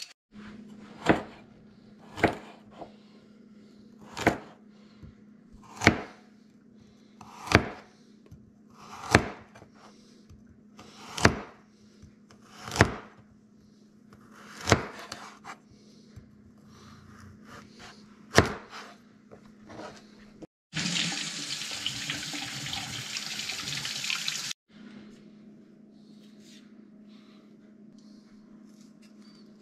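Chef's knife slicing through carrots onto a plastic cutting board, one sharp knock every second and a half to two seconds. A kitchen tap then runs for about four seconds and shuts off, over a faint steady hum.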